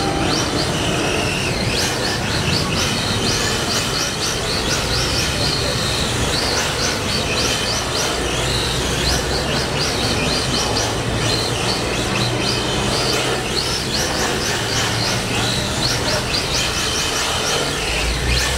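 Yokomo Drift Type C RC drift car sliding around on a tiled floor, its hard drift tyres scrubbing and clattering steadily over the tiles.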